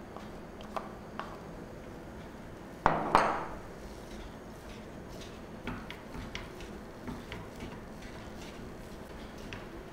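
Wooden spatula knocking and scraping against a nonstick frying pan as soft khoya (mawa) is broken up and stirred. There are scattered light taps, with the loudest pair about three seconds in.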